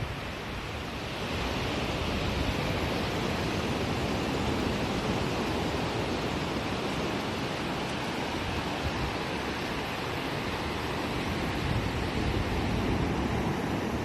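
Ocean surf washing onto the shore: a steady rush of noise that swells a little about a second in.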